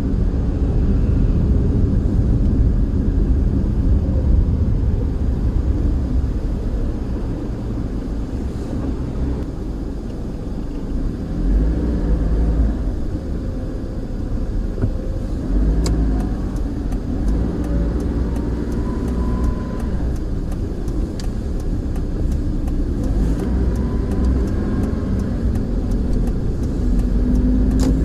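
Car engine running with road and tyre rumble as the car drives slowly, the engine note shifting up and down and rising near the end.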